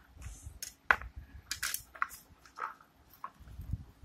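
Handling of a small cardboard phone box and its clear plastic tray and paper insert: scattered crinkles, clicks and light knocks, with a sharp click about a second in.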